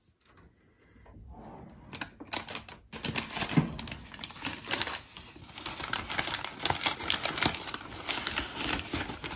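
Clicks and a clunk from a Balmuda toaster oven's drop-down door being opened, then a paper bakery bag crinkling and rustling as a croissant is taken out of it. The crinkling is dense and crackly and runs from about three seconds in.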